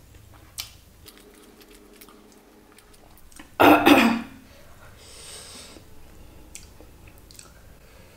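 A woman coughs once, a short double burst about three and a half seconds in. Around it are faint clicks of fingers working through rice on a plate, and a brief hiss a second later.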